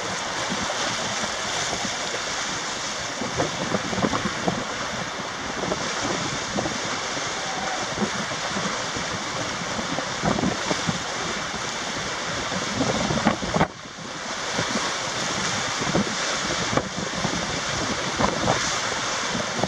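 Churning wake water from a passing loaded lake freighter sloshing and splashing against the canal pier wall, with gusty wind noise on the microphone.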